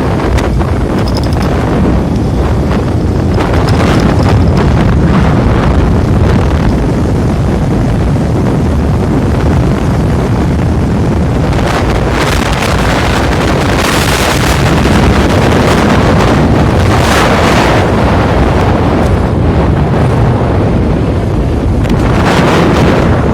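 Loud wind buffeting the microphone, a continuous rumbling rush that surges in gusts, several stronger around the middle of the stretch and near the end.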